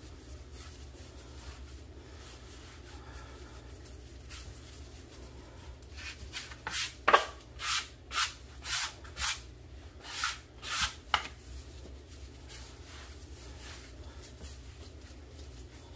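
Gloved hands rolling and working a log of soft dough on a floured wooden board: soft rubbing throughout. In the middle comes a run of quick, louder rubbing strokes, about two a second, lasting about five seconds.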